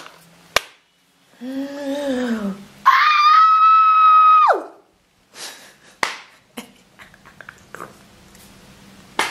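A woman's voice: a short falling cry, then a loud, long high-pitched scream held steady for about a second and a half before it drops away in pitch. A few light clicks follow.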